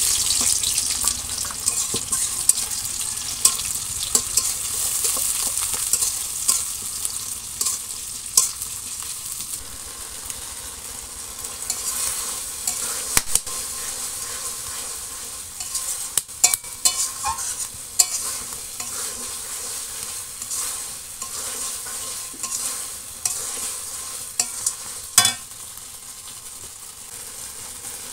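Sliced onions frying in hot oil in a steel wok with a steady sizzle, loudest at first and easing after about ten seconds as they cook down into a spice masala. A metal spatula stirring them scrapes and clicks against the pan.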